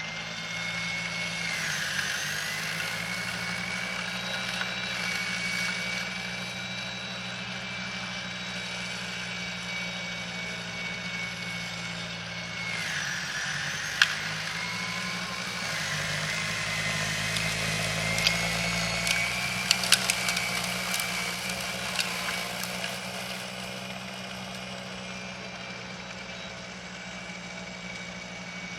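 EGO electric two-stage snow blower running: a steady high motor whine over a low hum. The pitch sags briefly about two seconds in and again around thirteen seconds, as under load. A few sharp clicks and knocks come around fourteen and twenty seconds.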